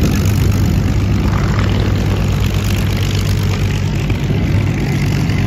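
Curtiss P-40 Warhawk's liquid-cooled V-12 piston engine running as the fighter taxis close by: a steady, low propeller-engine drone.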